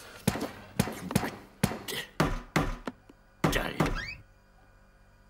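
A kitchen drawer slammed again and again on a tin can: a run of about eight hard thuds and knocks over four seconds, stopping about four seconds in.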